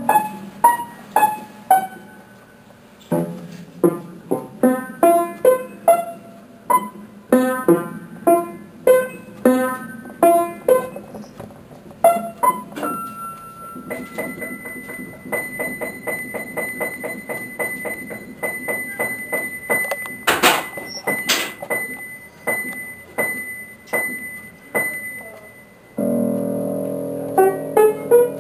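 Background music: a piano-like keyboard playing a melody of separate, quickly decaying notes, with a stretch of fast repeated notes in the middle.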